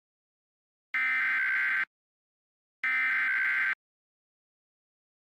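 Emergency Alert System SAME header: warbling two-tone data bursts of a NOAA Weather Radio alert, each about a second long with a second of silence between. Two full bursts follow the tail of a first at the very start. They mark the opening of a new weather alert.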